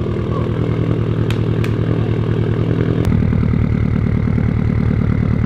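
A 2015 Subaru WRX STi's turbocharged flat-four idles through a titanium Tomei Expreme Ti cat-back exhaust with a steady, way-deep pulsing burble. A few light clicks sound in the first three seconds, and the idle note changes about three seconds in.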